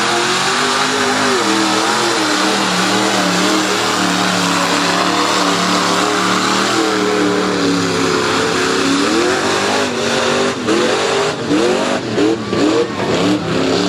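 A mud-bog Jeep's engine runs hard at high revs as the Jeep ploughs through the mud pit. Over the last few seconds the revs rise and fall quickly, over and over, as the throttle is worked in the mud.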